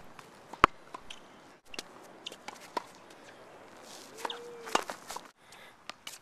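Tennis ball and racket sounds close to the microphone: a sharp impact under a second in, scattered light taps and clicks, and a second sharp hit about three-quarters of the way through, just after a serve toss. A short squeak rises and falls just before that second hit.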